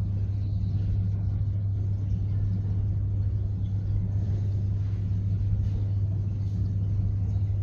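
A steady low hum with a faint hiss above it, unchanging, with no knocks or clicks.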